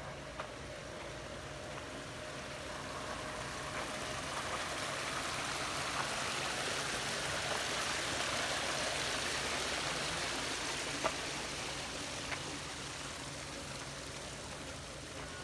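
Steady rushing sound of running water, swelling to its loudest about halfway through and fading again, with a few faint clicks.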